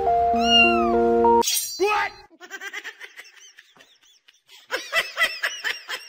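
Cat meowing in short, high mews, one about a second and a half in, then many in quick succession near the end. Background music plays at the start and cuts off about a second and a half in.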